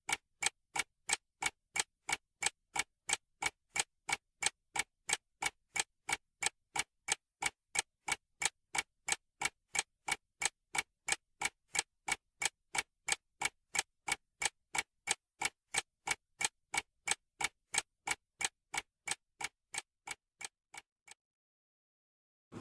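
Steady clock ticking: an even run of sharp ticks, about two to three a second. It stops abruptly near the end.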